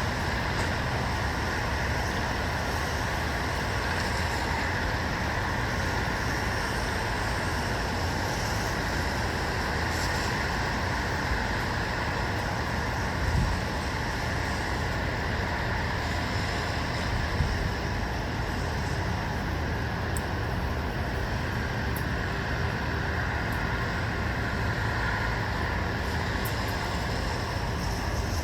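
Steady, even hum of distant road traffic, with a low rumble beneath and a few faint ticks.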